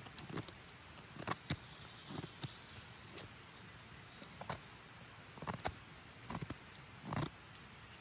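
Knife blade shaving thin curls down a split wooden stick to make a feather stick: a series of short scraping strokes at uneven intervals, with one longer stroke near the end.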